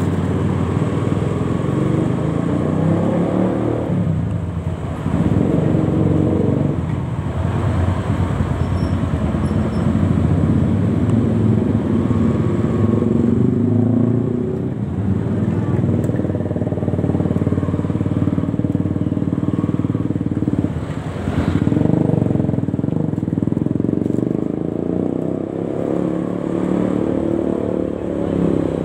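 Motorcycle engines running in dense, slow-moving traffic, heard from a moving motorcycle among many others. The sound dips briefly about five seconds in and again about twenty-one seconds in.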